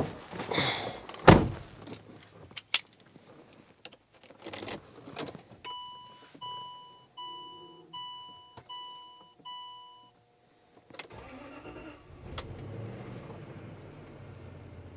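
Car door and key clunks, then a Land Rover LR3's dashboard warning chime ringing six times, evenly spaced, as the ignition is switched on. After a click, a low steady hum starts near the end as the vehicle is powered up to raise its air suspension.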